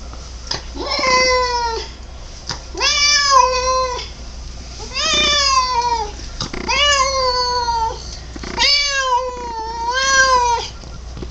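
Domestic cat giving five drawn-out, wavering meows in a row, each one rising and then sliding down in pitch, the last one longest.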